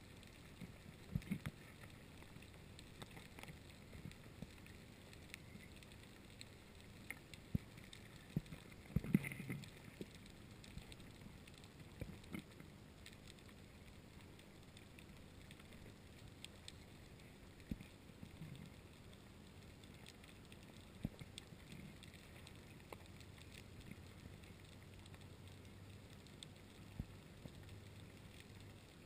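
Faint underwater ambience: a low hiss with scattered clicks and knocks, and a brief louder low rumble about nine seconds in. A faint steady low hum comes in near the end.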